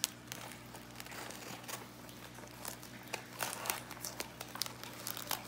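Plastic wrap crinkling and crackling as it is slit with a small knife and pulled off a flat parcel. The crackles are irregular and grow busier in the second half.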